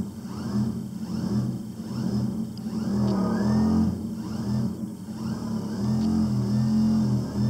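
fishBOAT v2 robotic fish's drive motor running underwater, a steady hum that rises and falls about one and a half times a second with each beat of the flapping tail, pulling hard against its harness. The owner says the motor has shifted off-centre and is rubbing.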